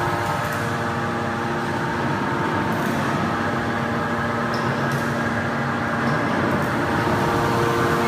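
A 500-ton hydraulic metal baler's power unit running: a steady machine hum with several held tones, no pressing impacts.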